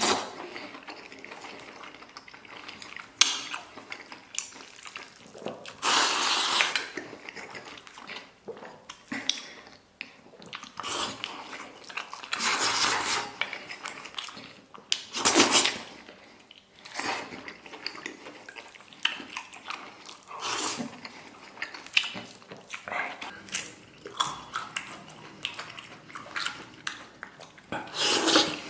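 Close-up mukbang eating of braised pig large intestine: wet chewing and smacking with many small clicks, and several louder slurps.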